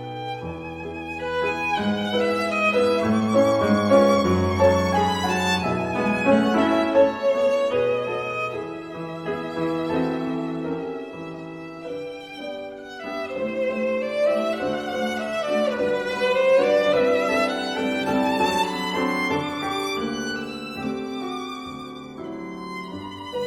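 Instrumental music: a violin plays a slow, wavering melody over sustained lower notes.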